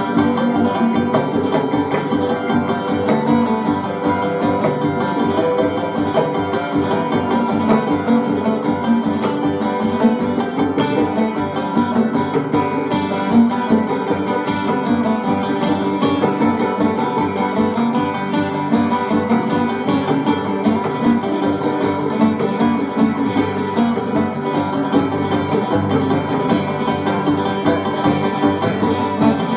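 Live acoustic band playing an instrumental passage: a strummed acoustic guitar with fiddle and a second guitar, steady throughout.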